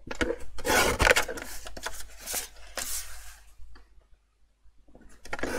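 Lever-arm guillotine paper trimmer cutting a sheet of glitter cardstock: a slicing scrape ending in a sharp knock about a second in. Then shorter rustles and scrapes as the card is slid along the trimmer bed and pulled away.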